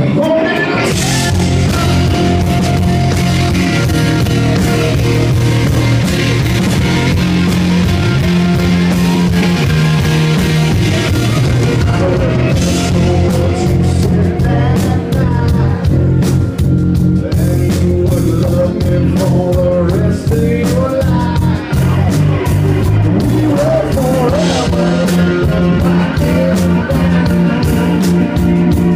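Live rock band playing an instrumental stretch of a song, electric guitar over bass and drums, loud and a little distorted as picked up by a phone in the crowd.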